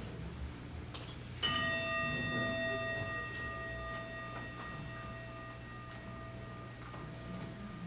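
Tibetan singing bowl struck once, about a second and a half in, then ringing on with several overtones that slowly fade, the tone wavering in a slow pulse.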